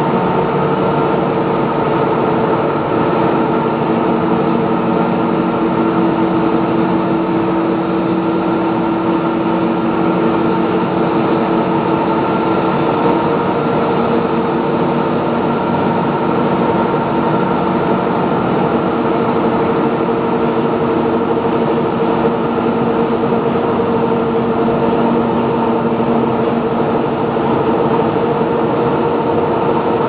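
Industrial machinery in an aluminium rod casting plant running continuously: a loud, steady drone with several held tones over a hiss, unchanging throughout.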